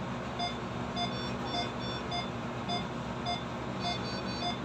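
Short electronic beeps repeating a few times a second, over a steady low machine hum: hospital bedside equipment sounding.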